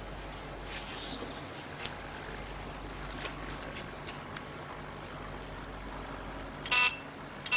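Steady low background hum with a few faint clicks, then near the end a short, loud electronic beep with a shrill tone.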